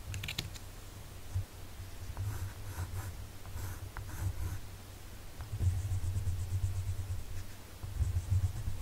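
Colored pencil scratching on sketchbook paper in short strokes, which come quicker and more evenly in the second half, over a low rumble.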